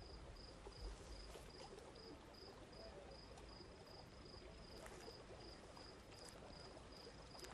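Near silence: faint room tone with a soft high-pitched chirp repeating evenly about two and a half times a second.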